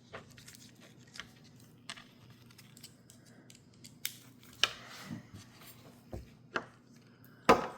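Scattered small metallic clicks and taps as folding-knife parts are handled during disassembly and cleaning, the loudest click near the end.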